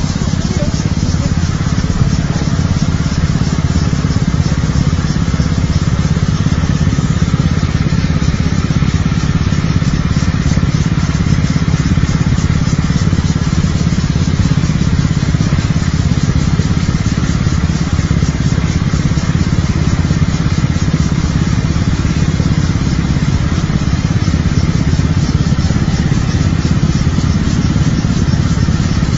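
Small motor scooter engines running steadily, heard from a moving scooter riding close alongside others.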